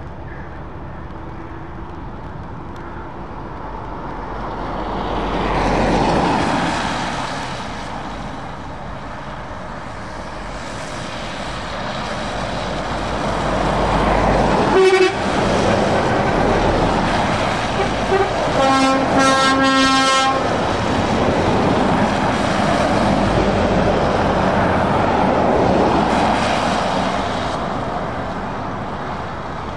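Heavy trucks, Volvo FH and Scania tractor units among them, drive past on a wet road, with engine and tyre noise swelling and fading as each one goes by. Around two-thirds of the way through, a truck's air horn sounds in a few short toots.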